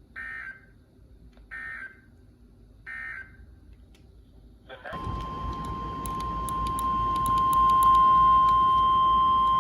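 Weather radio receiver playing three short warbling digital data bursts (the SAME header that precedes an alert). About five seconds in, the steady single-pitch warning alarm tone starts over radio hiss and crackle, growing louder for a few seconds and then holding.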